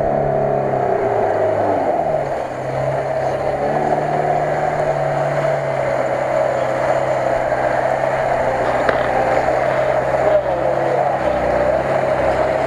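Lada Niva engine running under load as the four-wheel-drive car drives through floodwater and mud, with water splashing around it. The revs dip about two seconds in, then pick up and hold.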